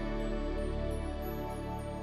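Soft, sustained background music with held tones, sad in mood.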